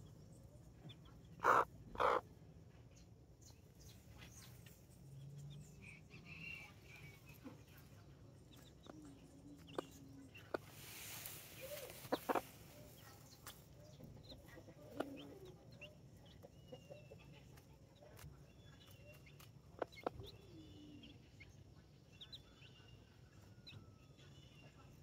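Mother hen clucking in short calls, two loud ones about a second and a half in, then softer, scattered clucks, with her chicks' faint high peeping.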